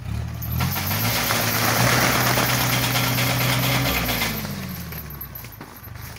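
Tractor engine revving up to drive a PTO-powered rope shaker on a walnut tree. It holds steady for about three seconds under a loud rush of shaking branches and falling walnuts, then winds back down near the end.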